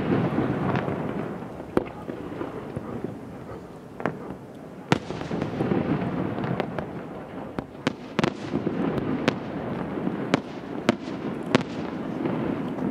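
Aerial fireworks display: shells bursting in sharp bangs at irregular intervals, a few close together at times, over a continuous rumble of further bursts.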